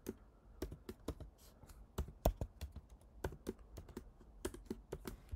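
Typing on a computer keyboard: irregular keystrokes in short runs with brief pauses between them.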